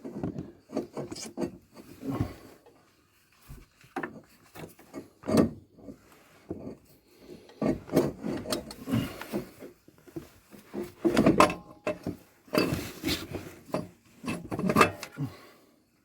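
Irregular scraping, rubbing and knocking of metal parts and hand tools being handled while the turbo is fitted back onto the exhaust manifold, in several separate bouts.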